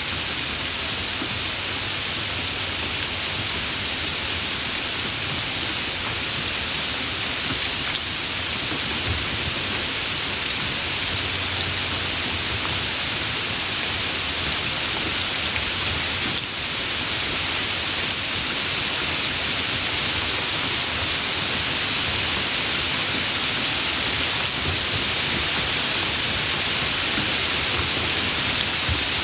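Steady, soft rain falling: an even hiss of many drops with no single drop standing out.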